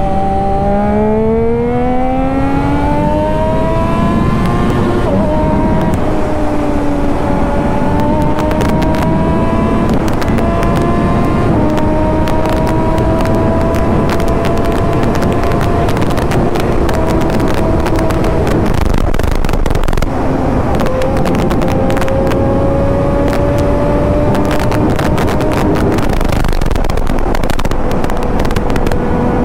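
Triumph Daytona 675 inline-three motorcycle engine under way: it climbs in pitch over the first few seconds, then holds a steady cruise with a few small shifts in pitch. Wind buffets the microphone throughout.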